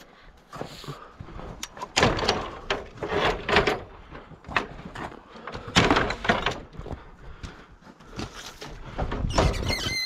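Fiberglass extension ladder with aluminum rungs being hoisted and slid onto a pickup's metal ladder rack: irregular scrapes and knocks, with a short squeal of metal sliding on metal near the end.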